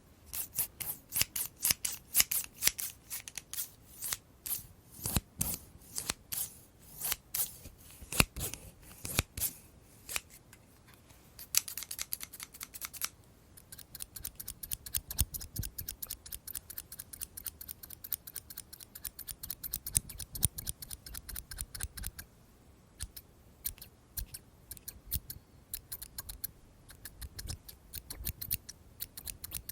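Scissors snipping over and over, in runs of crisp snips that come quickest in the middle, with brief pauses between runs.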